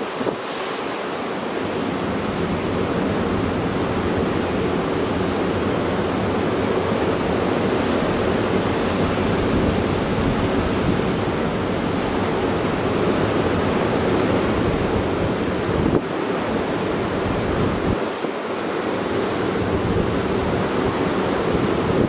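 Atlantic Ocean surf breaking on a sandy beach, a steady wash of waves, with wind gusting on the microphone.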